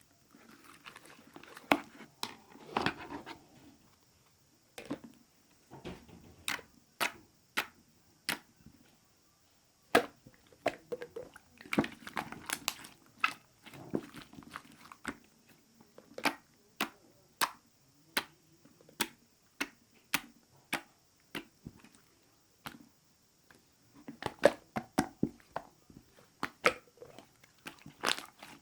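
A series of sharp, irregular clicks and taps, about one or two a second, with some soft rustling in between.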